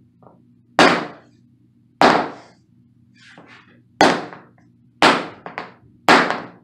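White rubber mallet knocking a vinyl plank five times, one to two seconds apart, with sharp brief knocks. The mallet is tapping the plank's tongue-and-groove click joint home so that it locks.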